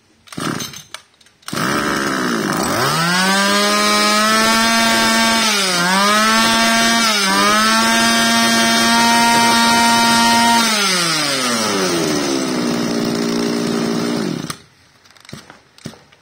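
Komatsu Zenoah BC2600 brush cutter's 26 cc two-stroke engine catching after a few short rattles. It revs up fast and is held at high revs, dipping briefly twice, then drops to idle and shuts off about two seconds before the end. This shows it starting easily and running strong.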